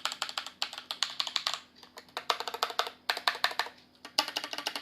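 Razer BlackWidow Ultimate mechanical keyboard with yellow switches being typed on. The keystrokes come in quick runs of clacks, with two short pauses between the runs.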